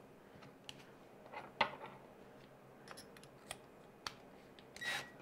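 Small clicks and taps of handling a cordless drill and a loose drill bit, as the bit is fitted into the drill's chuck and the chuck is turned by hand. There is a short, slightly louder burst of noise near the end.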